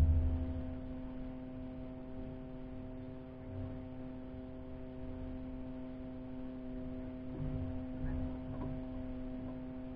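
A steady hum, one pitch with several even overtones, holding level throughout, with a few faint low thuds.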